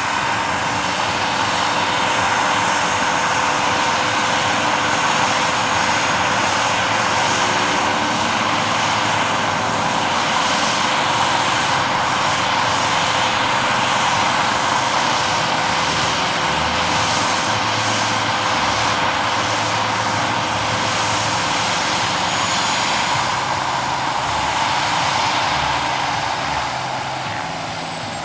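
Large-scale RC Bell 206 JetRanger model helicopter with a turbine engine hovering low, with steady rotor noise and a high turbine whine. Near the end it sets down, the sound drops, and the high whine starts to fall in pitch.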